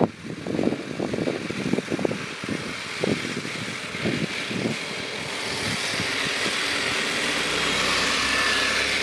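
A 3D-printed radio-controlled model T-34 tank driving through tall grass: a steady mechanical whir from its drive that grows louder as the tank comes close in the second half. Before that, wind buffets the microphone in irregular gusts.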